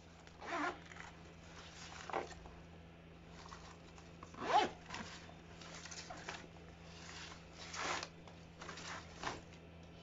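Zipper on a Nike Tanjun backpack being worked and the bag handled, in about five short rasping zips and rustles, the loudest about halfway through.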